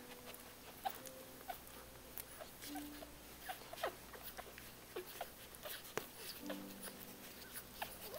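Two-day-old dachshund puppies nursing at their mother, faint. Scattered small squeaks and grunts run through it, with many tiny clicking suckling noises.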